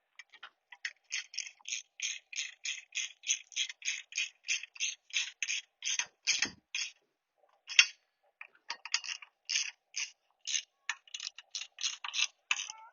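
Ratchet socket wrench clicking steadily, about three or four clicks a second, as a bolt is tightened on a bracket. The clicking pauses for about two seconds past the middle, then carries on.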